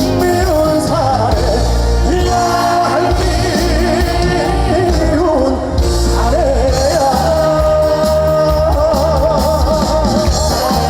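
Male voice singing a trot song live over a backing band, with long held notes sung with wide vibrato.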